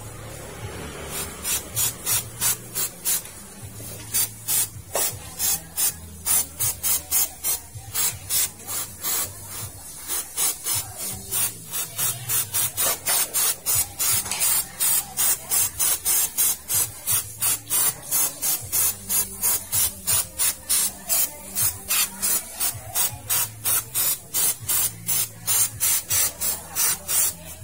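Aerosol cleaner sprayed through its straw nozzle in rapid short bursts, an even train of about two to three hisses a second.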